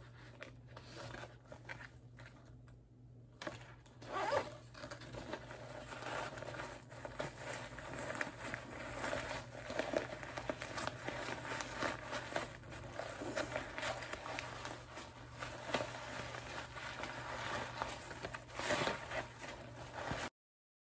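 Zipper on a canvas pouch being worked, with fabric rustling and scraping as a folded backpack is pulled out and handled. The handling noise is continuous from a few seconds in and cuts off suddenly near the end.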